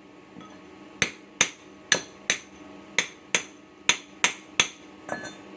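Hammer striking a freshly welded steel workpiece: nine sharp, ringing metal strikes, mostly in quick pairs, then a lighter clatter near the end.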